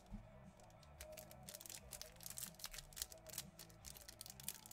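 Faint crinkling and clicking of a foil trading-card pack wrapper being handled, over quiet background music.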